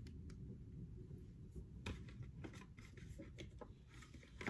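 Faint handling noise: scattered light clicks, taps and scratchy rustles of small cosmetic products and packaging being picked up and moved about.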